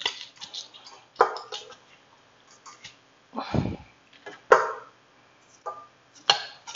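Hand-held Ricardo garlic press being worked over a steel mixing bowl: a string of separate metal clacks and knocks as cloves are squeezed and the press is opened, with one heavier thump about halfway through.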